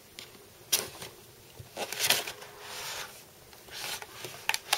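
Cardboard box and plastic packaging being handled as a boxed computer mouse is taken out: a string of short rustles and scrapes, with a couple of sharper ones near the end.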